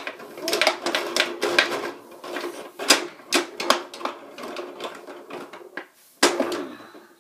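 Tabletop mini foosball game in play: plastic player figures and ball clacking, and the metal rods knocking in the table as they are spun and slammed. The clacks come fast and irregular, with a brief lull and then a sharp knock near the end, over a faint steady hum.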